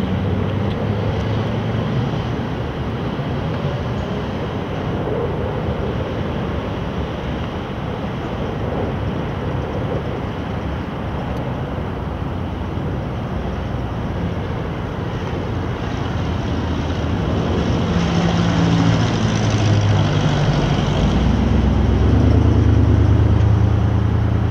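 A steady, broad rumble, and over the last several seconds the engine drone of a single-engine propeller plane coming in low grows louder and peaks.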